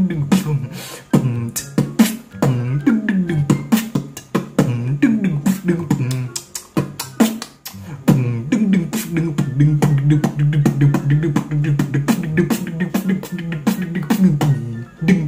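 Vocal beatboxing: a fast run of tom-tom sounds, each a pitched 'dung' that falls in pitch, made by humming while pulling the folded-back tongue down, mixed with sharp percussive mouth clicks. From about halfway the hum settles into a steadier low note under the clicks.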